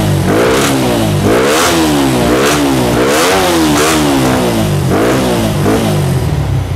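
Bored-up 220 cc Yamaha Xabre single-cylinder four-stroke engine revved by hand through a custom exhaust. It gives a series of quick throttle blips, each rising and falling in pitch, then settles back to idle near the end.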